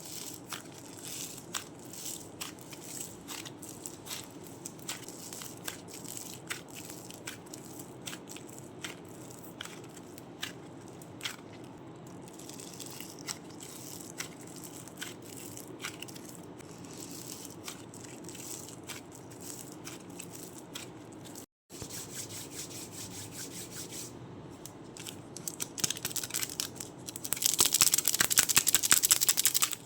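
Crunchy clay being squeezed and broken, giving scattered small crackles and clicks. After a brief cut about two-thirds of the way through, a denser, louder run of rapid crackling follows near the end.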